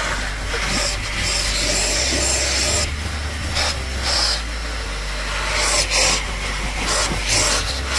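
SIP 3-in-1 industrial valet machine vacuuming, its hose nozzle rubbing and sucking across dry car carpet with a rushing hiss that swells and dips as it is dragged back and forth.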